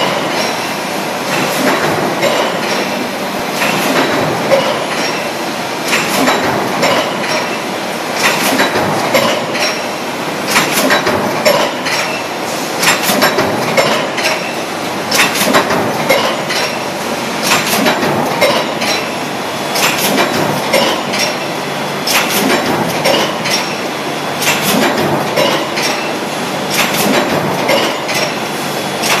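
Metal stamping press line running, fed from a steel coil: a steady mechanical din with frequent sharp clanks and metallic clinks.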